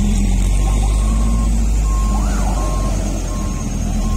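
Heavy truck diesel engines idling with a steady low rumble, and a truck's reversing alarm sounding a repeated high beep.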